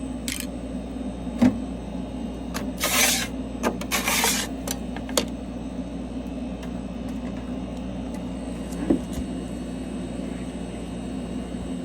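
Steady machine hum from a mini LCD-separating freezer running, with a few sharp handling clicks and two short hissing bursts about three and four seconds in.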